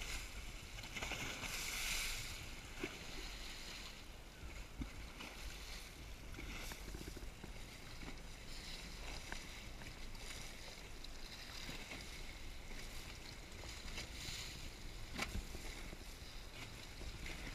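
Steady low rumble and hiss of wind and sea water around a boat at sea, with a few faint knocks, the clearest one near the end.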